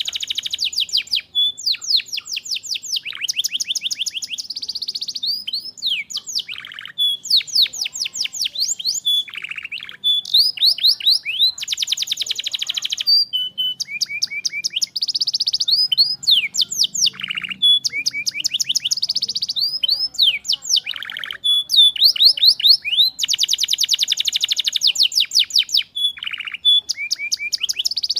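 Canary singing a long, continuous song of rapid trills, each a fast run of one repeated note, switching to a new trill every second or so.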